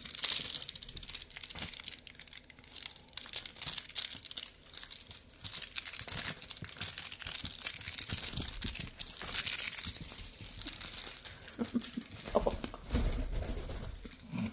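African grey parrot tearing and crumpling a sheet of paper with its beak, an irregular run of rustling, crinkling and ripping. A few low thumps come near the end.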